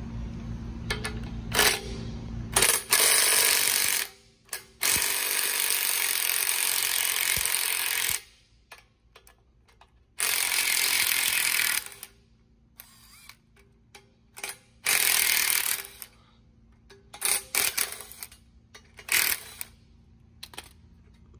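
Impact wrench hammering as it loosens and backs out 3/8-inch grade 8 bolts tapped into a steel slide tube. It goes in a few long runs of a second or more, then several short bursts in the second half.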